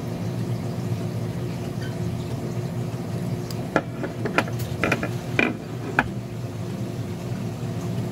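A quick run of small sharp clicks, about seven in two seconds starting a little under halfway in, from metal pliers working the leads of a thermal fuse on a circuit board, over a steady low hum.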